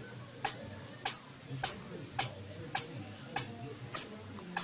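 A cat sneezing over and over in a rapid run: about eight short, sharp sneezes, evenly spaced a little more than half a second apart.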